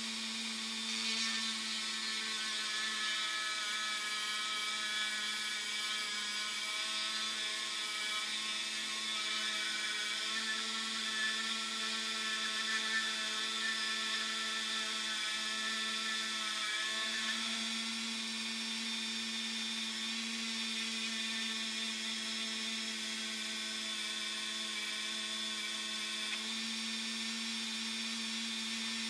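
Handheld rotary tool with a small burr bit running at a steady high speed, grinding into a 1:64 diecast metal truck body: a continuous high-pitched motor whine.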